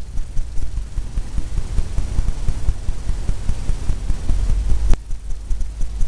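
Corner of a paintbrush tapping rapidly against a stretched canvas, several dull thumps a second, with a sharper click about five seconds in.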